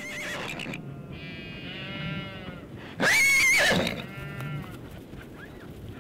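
Sheep bleating: a drawn-out wavering call a second or so in, a loud call about halfway through, then fainter bleats.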